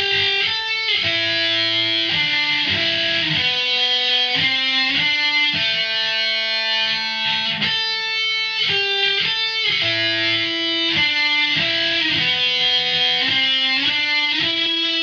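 Electric guitar in drop D tuning playing a single-note melodic line, one sustained note after another across the upper strings. The phrase is played through once and then repeats with a changed ending.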